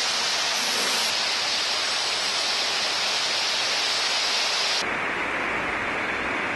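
Steady loud hiss, with a sudden change about five seconds in: the high part drops away and a low rumble comes in.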